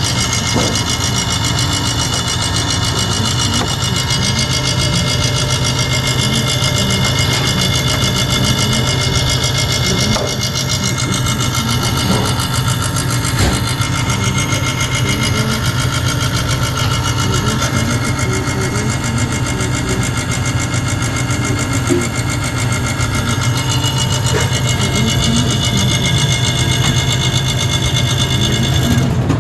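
Refrigeration compressor running with a loud, steady hum and vibration. It is a failing compressor that the technician finds sometimes sticks and trips its thermal overload.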